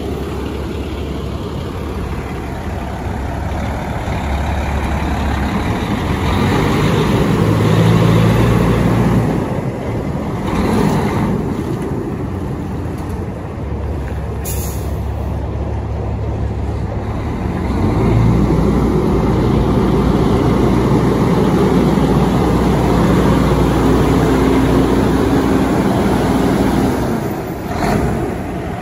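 Heavy diesel engine of a 2007 Peterbilt 386 semi tractor running at idle, steady and low. It gets louder for a few seconds about a quarter of the way in and again through most of the second half. There is a short hiss near the middle.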